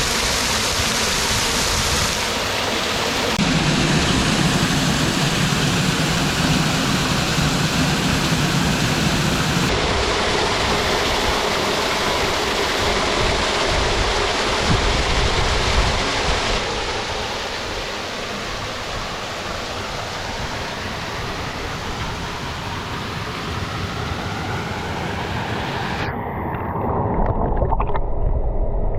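Small waterfall rushing steadily, loud and close, across several cuts. Near the end the bright rush drops away, leaving a duller low rumble.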